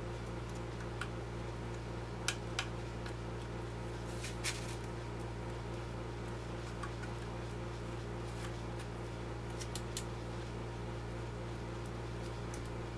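Steady low electrical hum with a few scattered light clicks and taps of small parts being handled, the loudest pair about two seconds in and another a couple of seconds later.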